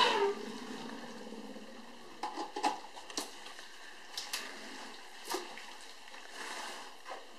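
African elephants drinking at a waterhole: soft splashes and trickles of water from their trunks, with a few short sharp clicks or splashes scattered through and a brief run of pouring water near the end.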